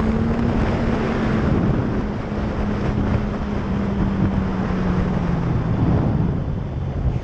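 Sport motorcycle riding at speed: heavy wind noise buffeting the mounted microphone over a steady engine note that slowly drops in pitch.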